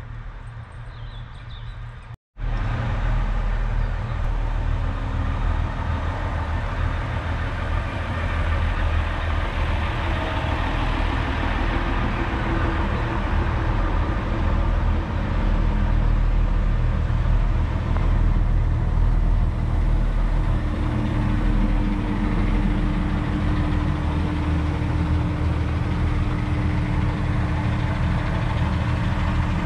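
Class 142 Pacer railbus's underfloor diesel engines idling at the platform, a steady low rumble heard close up. A steady hum joins it about twenty seconds in. Before the engine sound there is a quieter passage and a brief dropout about two seconds in.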